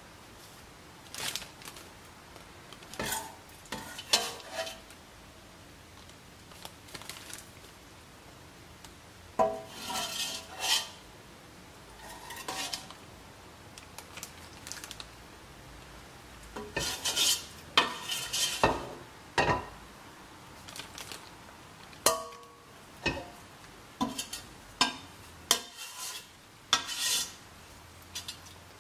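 Metal ladle knocking and scraping against a stainless steel stockpot as sauce is scooped out. The irregular clinks ring briefly and come thicker in the second half.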